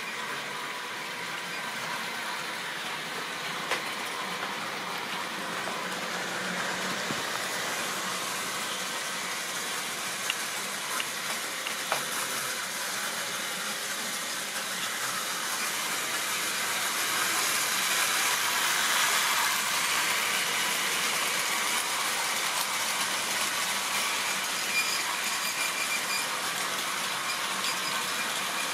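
OO-gauge model trains running on the layout's track: a steady rolling hiss with a few sharp clicks as wheels cross rail joints and points, getting louder about halfway through as a train of wagons runs close by.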